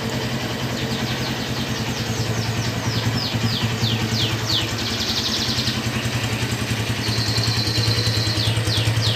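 Honda Tiger Revo (GL200R) 200 cc single-cylinder four-stroke engine idling smoothly and steadily. Two runs of quick, high, falling chirps sound over it, a few seconds apart.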